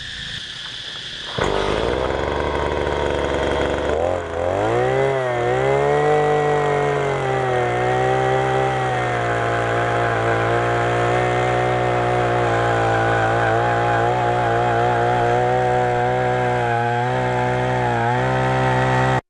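Oshima 2P earth auger's 49.9 cc single-cylinder two-stroke engine comes in at a low idle about a second and a half in, revs up sharply around four seconds in, then runs steadily at high speed as the 250 mm auger bit bores into the soil. It cuts off abruptly at the end.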